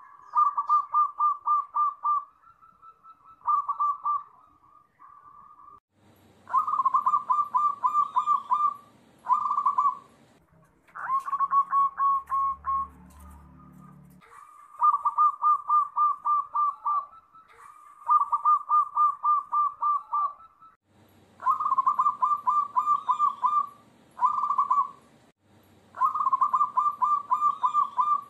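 Zebra doves (perkutut) cooing: one phrase after another of rapid, stuttering trilled coos held at one pitch, each a second or two long and often followed by a short separate note. The songs of several birds are joined together.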